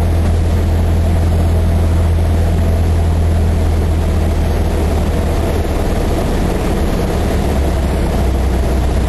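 Cessna 152's four-cylinder Lycoming engine and propeller droning steadily, heard inside the small cockpit. About six seconds in, the engine note drops to a lower pitch as power comes back on the approach.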